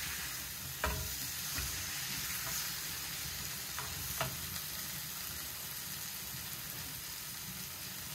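Potatoes and spices sizzling as they pan-fry in a metal pan, with a steady hiss throughout. A wooden spatula and spoon stir them, knocking against the pan a few times in the first half.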